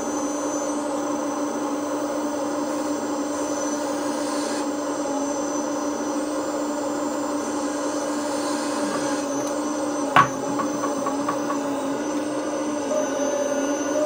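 Servonaut SMB sound module on a Magom 330D RC excavator playing a simulated diesel engine running steadily through the model's speaker. A single sharp knock about ten seconds in, followed by a few quick ticks.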